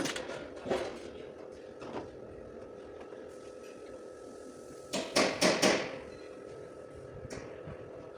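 Hammer blows on a car's sheet-metal body panel during dent repair: a few separate strikes, then four quick ones in a row about five seconds in.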